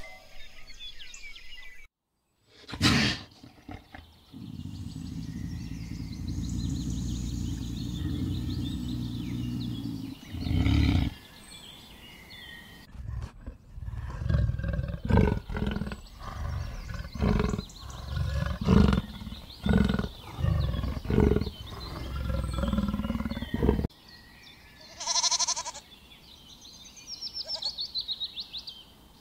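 Leopard giving a steady low growl, then a run of short, repeated grunting calls about once a second. Near the end a goat bleats.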